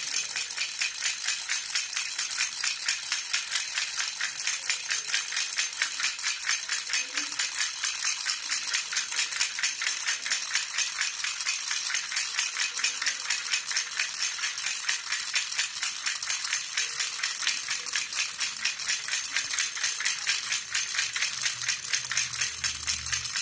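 Jhunjhuna baby rattle shaken continuously, a dense stream of rapid jingling clicks. A faint low hum comes in near the end.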